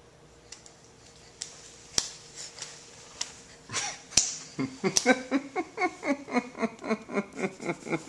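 A few light clicks and taps, then from about halfway a baby babbling close to the microphone in a rapid run of short repeated syllables, about five a second.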